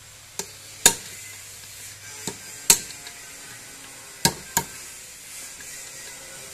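Hammer striking a steel punch held against a check nut in a power tiller gearbox housing, driving the nut tight: about six sharp metallic taps at irregular intervals, mostly in pairs.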